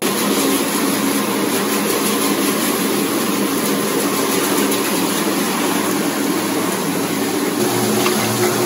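Hydromassage bathtub's jet pump running, with the bathwater churning in a steady hum.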